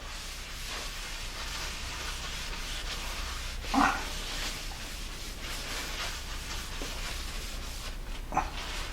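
A cloth scrubbing a surface plate with white vinegar, making a steady rubbing hiss as the blue test marking is wiped off. There is a short voice-like sound about four seconds in and a fainter one near the end.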